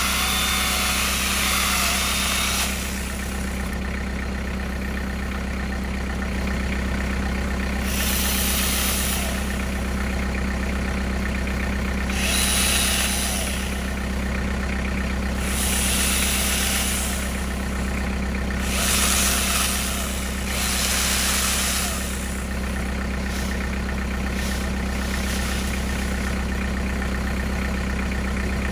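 A compact tractor's engine idles steadily while a cordless angle grinder fitted with a small chainsaw attachment runs in about six short bursts, a second or two each, cutting through tree branches.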